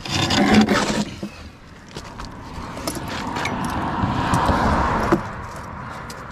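Metal clanking and scraping as a heavy magnet-fished object is hauled up out of the water: a loud burst in the first second, then a longer scrape from about two seconds in that stops suddenly about five seconds in.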